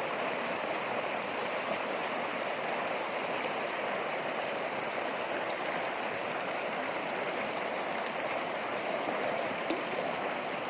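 River water running and splashing over rocks, a steady rushing with a few faint ticks.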